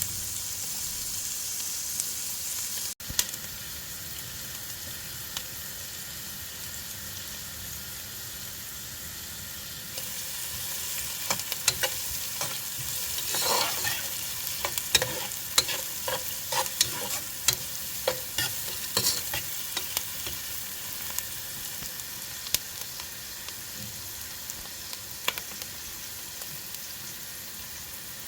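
Food frying with a steady sizzle in a pan, with a utensil stirring and scraping against the pan for several seconds in the middle.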